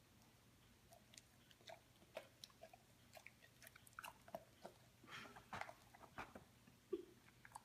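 Labrador retriever mouthing and chewing at a whole cherry tomato: faint, irregular wet clicks and smacks of teeth and lips, busiest a few seconds in.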